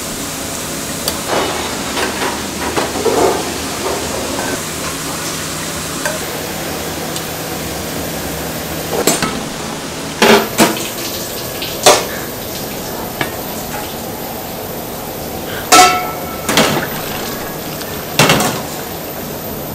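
Kitchen clatter: stainless steel bowls knocked and set down on a steel counter, about half a dozen sharp clanks over a steady hiss of kitchen noise.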